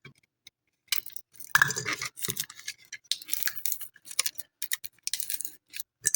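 Irregular sharp plastic clicks, cracks and scrapes, starting about a second in, as the clear plastic cover over a smoke and carbon monoxide detector's LCD is pried off by force.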